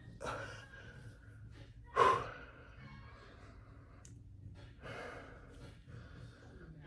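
A man breathing hard from exertion during floor ab exercises: several forceful exhales and gasps, the loudest and sharpest about two seconds in.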